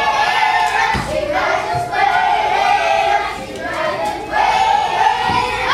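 A group of young children singing together in held phrases about a second long, their voices ringing in a hall.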